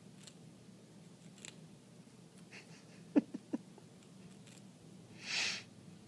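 Prairie dog with its head inside a Cheetos chip bag, eating and rustling: faint crinkles, three sharp clicks in quick succession about three seconds in, and a short crinkly rustle of the bag near the end.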